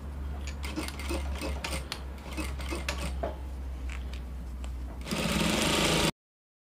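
Industrial sewing machine with a steady low hum and small clicks and rustles as fabric is positioned under the needle. About five seconds in the machine starts stitching, sewing a collar onto a neckline, and about a second later the sound cuts off suddenly.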